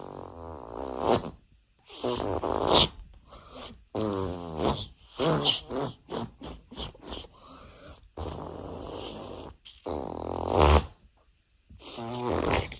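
A string of fart noises, about nine in a row, each lasting up to about a second and a half with short gaps between them.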